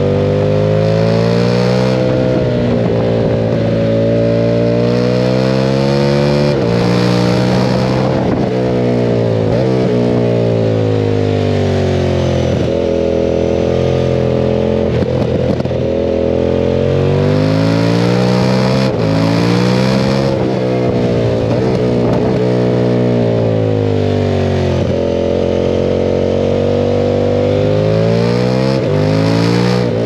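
KTM 990 Super Duke's V-twin engine under hard riding: the pitch climbs under acceleration and falls away again and again, with quick drops and rises at gear changes. Wind rushes over the microphone at the fast moments.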